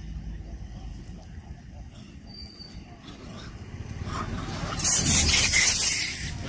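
Long-tailed macaques screaming: a loud, harsh burst of shrieks starts about three-quarters of the way through, after a few seconds of only a faint low rumble.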